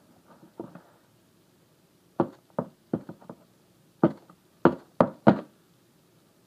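Sharp knocks on a cardboard shipping box as a hand-held tool is jabbed down into its top to break it open: about nine irregular hits, coming quicker and louder about four seconds in.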